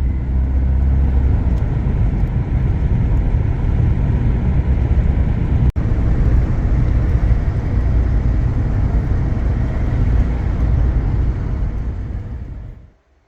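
Steady low road and engine rumble from a moving car, heard from inside the vehicle. It drops out briefly about halfway through and fades away near the end.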